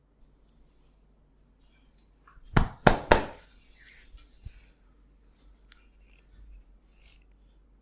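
Three sharp hand smacks in quick succession during an oil massage, followed by faint rubbing and rustling of hands on skin.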